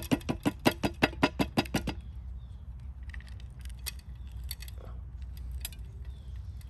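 Rapid, even taps against the side of a glazed ceramic planter, about five a second, knocking loose the small wooden bonsai pot seated in it; they stop about two seconds in, leaving a few scattered faint clicks.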